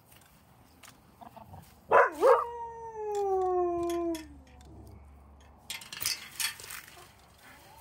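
One long animal call about two seconds in, wavering at first and then held as a falling tone for about two seconds. It is followed about six seconds in by sharp metallic clicks and rattles from the latch of a black metal fence gate being opened.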